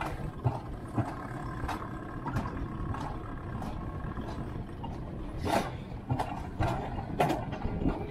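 Alpine coaster sled running down its steel tube track: a steady rumble from the wheels on the rails, broken by irregular sharp clacks.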